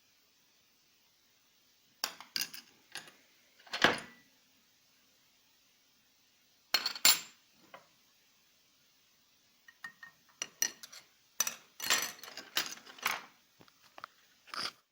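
Metal objects clinking and knocking as they are handled and set down, in three clusters of sharp clicks with quiet gaps between.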